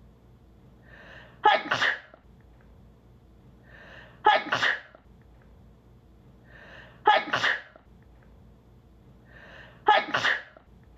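A woman sneezing four times, the same sneeze looped and repeating about every three seconds: each a short indrawn breath followed by a sharp, loud 'ah-choo' burst.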